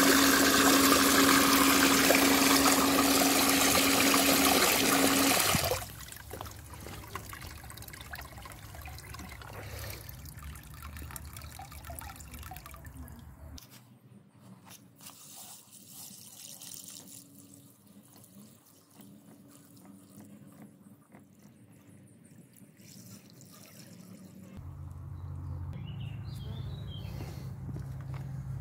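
Dirty backwash water gushing from a Bestway sand filter's waste hose into a plastic tub, with a steady hum from the running filter pump; the flow cuts off suddenly about five and a half seconds in. Then only faint trickling and handling sounds, with a low hum returning near the end.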